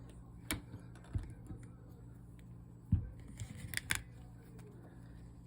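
Scattered small clicks and scrapes of a thin blade being worked around the edge of an iPhone 13 mini's display to free the glued screen from the frame. There is a louder knock about three seconds in and a short scratchy scraping just after it.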